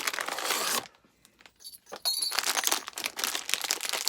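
Packaging being handled and unwrapped by hand, rustling and crinkling: a short burst of rustling, a pause of about a second, then a longer stretch of crinkling with small clicks.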